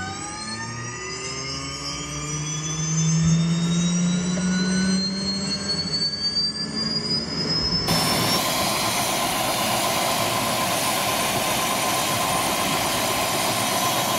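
Helicopter turbine engine spooling up: a whine climbs steadily in pitch over a rising hum. About eight seconds in, it gives way suddenly to a steady rushing turbine noise.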